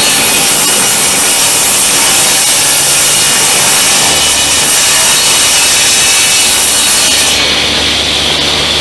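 Table saw ripping thick meranti stock, a loud steady cutting noise over the hum of the running saw. Near the end the high cutting sound eases while the saw keeps running.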